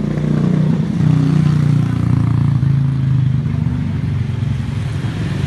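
An engine running close by at a steady low pitch that drifts up and down a little, loudest in the first half.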